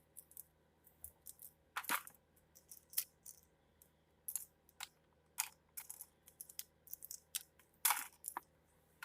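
Toy cutlery clicking and clattering as the pieces are put one by one into a drawer: a string of sharp, irregular clicks, two louder clacks about two seconds in and near the end.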